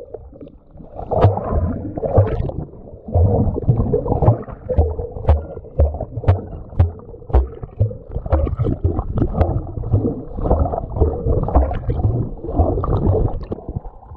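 A swimmer's strokes heard from underwater: muffled sloshing and gurgling with a steady run of dull, low thumps.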